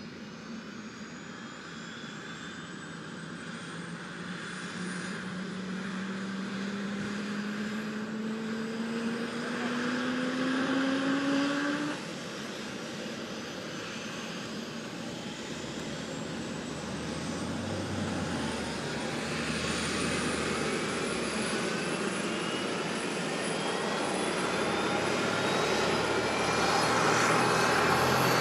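Agusta A109E helicopter's turbine engines running with a whine that rises slowly in pitch as they spool up, growing louder. About twelve seconds in the level drops abruptly, then another rising whine builds again.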